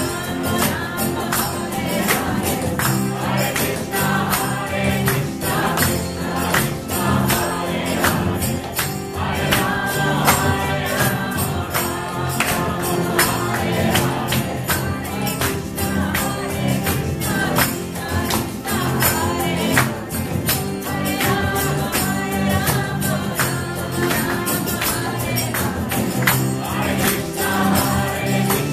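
Group call-and-response style mantra singing by many voices over a sustained low accompaniment, with a percussion instrument keeping a fast, steady beat.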